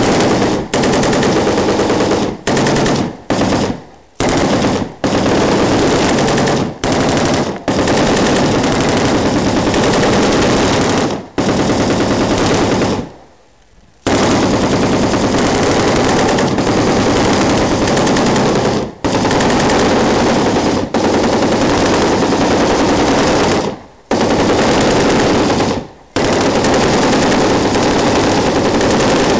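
Machine gun firing fully automatic in a string of bursts, from short ones under a second to sustained ones of about five seconds, with brief breaks between them and one longer pause of about a second near the middle.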